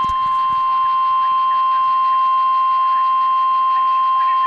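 NOAA Weather Radio 1050 Hz warning alarm tone: one loud, steady, high single tone that cuts off near the end, signalling that a severe thunderstorm warning follows.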